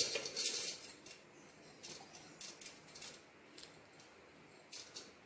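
Light kitchen handling noises: short scrapes and clicks of utensils. They are densest in the first second and then come at scattered moments, with no mixer motor running.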